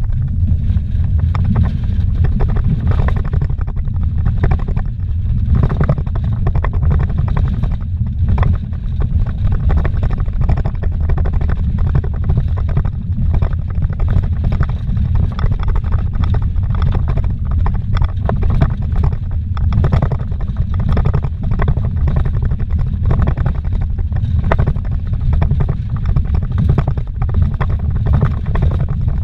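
Vehicle driving fast on a rough dirt road, heard from inside the cabin: a steady low road-and-engine rumble with frequent knocks and rattles from gravel and bumps.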